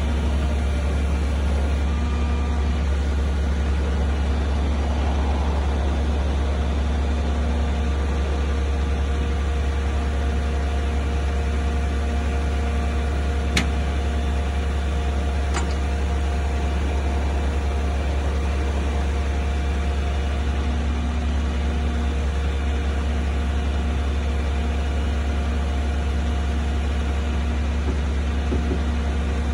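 Tow truck's engine running steadily at idle, a constant low hum with a few steady tones over it. Two sharp clicks about two seconds apart near the middle.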